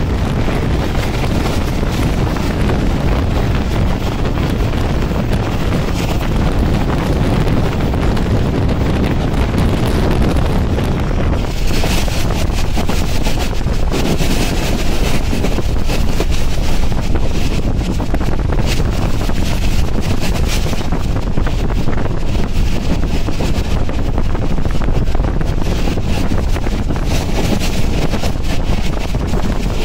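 Pakistan Express passenger train running at speed, heard from on board at an open door or window: a steady rumble of wheels on the track under heavy wind noise on the microphone. About twelve seconds in, the sound turns brighter and hissier.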